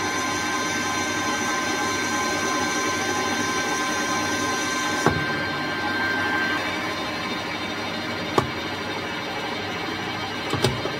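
Metal lathe running and turning a small piece of stainless steel for a washer: a steady machine whir with high whining tones, the highest of which stop about halfway through. Three sharp ticks come over it, about five seconds in, around eight seconds in and near the end.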